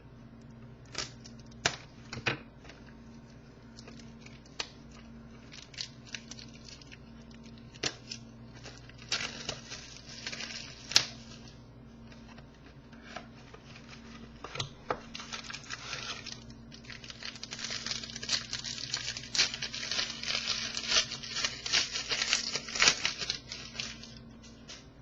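Plastic wrapping on a trading card box being torn open and crinkled by hand. A few sharp clicks and taps come first, then bursts of tearing and crinkling that become nearly continuous in the last third.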